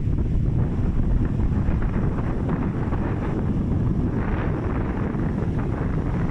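Strong wind buffeting the microphone: a steady, loud low rumble with no tone in it.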